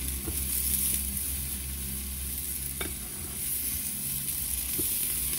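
Steady sizzle of a nopal cactus pad roasting in a frying pan, with light rustling and a few soft taps as a plastic sheet is smoothed out on a stone countertop.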